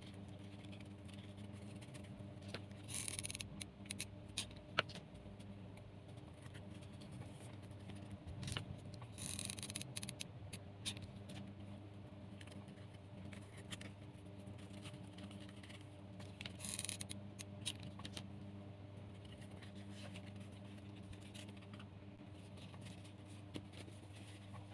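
Jute rope and cardboard rustling and scraping under the fingers as the rope is pressed and handled, in three short bursts a few seconds apart with small clicks between, over a steady low hum.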